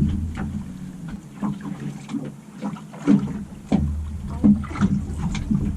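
Scattered knocks and clatter aboard a small fishing boat over a low rumble that drops away for about two seconds in the middle.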